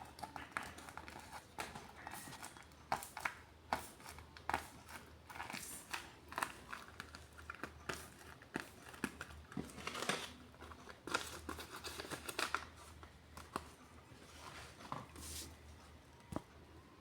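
Paper crinkling and rustling in irregular short sharp bursts as a handmade paper blind bag is handled and opened.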